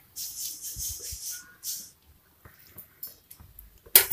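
Hot oil sizzling and crackling in a steel kadai as curry leaves fry, in uneven bursts of hiss. Near the end, a sharp metallic clatter of a slotted spoon against a steel plate.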